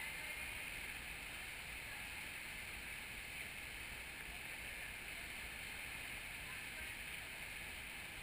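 Steady wash of indoor pool noise: swimmers splashing and churning the water as they swim laps, with no single splash standing out.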